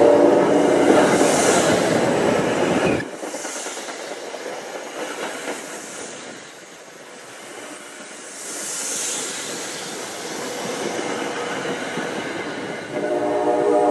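Stainless-steel commuter passenger coaches rolling past on curved track, the wheels rumbling on the rails with a few brief high-pitched wheel squeals. Near the end a held tone of several notes comes in.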